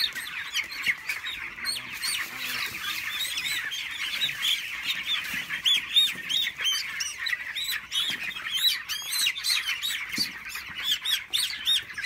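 A large flock of young chickens peeping continuously, many high-pitched chirps overlapping at once.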